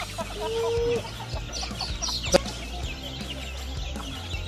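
Chickens clucking, with many chicks peeping high and a held call of about half a second near the start. A sharp click a little past two seconds in is the loudest sound.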